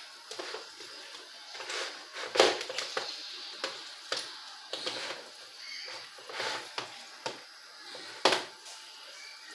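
Pot of thick ogbono soup simmering on the stove: irregular pops and clicks over a faint steady hiss, with the loudest pops about two and a half seconds in and near the end.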